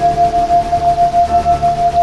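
A single steady electronic tone of a sound-healing frequency track, pulsing evenly about six or seven times a second, over soft, held ambient tones.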